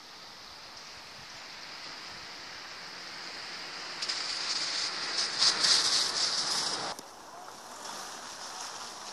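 Wind rushing over the microphone, a hissing roar that builds over several seconds, is loudest about two-thirds of the way through, then drops away suddenly.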